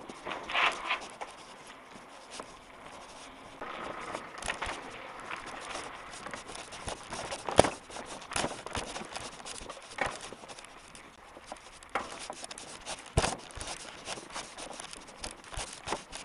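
Mountain bike ridden over rough, dry grassy ground: irregular rattling, scraping and crackling, with sharp knocks, the loudest about seven and a half seconds in and another around thirteen seconds in.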